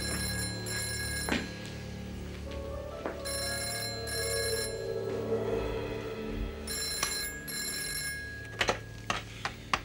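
Telephone ringing in a double-ring pattern: three pairs of short rings, each pair about three and a half seconds after the last, over soft background music. A few sharp clicks near the end.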